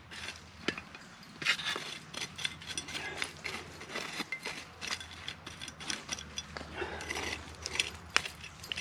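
Irregular scrapes, clicks and rustles of embers, dirt and sticks being raked away from a tin of fatwood in a campfire as it is uncovered after the burn.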